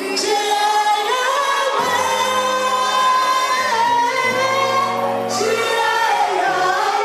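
Gospel singing with held, sliding vocal notes over a steady bass accompaniment.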